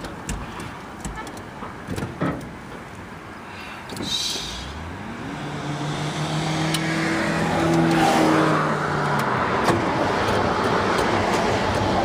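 Flooded engine of a 1970s Ford pickup turning over, heard from inside the cab. After a few light clicks, a hum rises quickly about five seconds in and holds steady while the mechanical noise grows louder and stays up.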